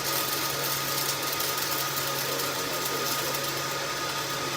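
Flux-cored arc welding: the arc crackles steadily with a fast, even sizzle over a constant low hum as a bead is run.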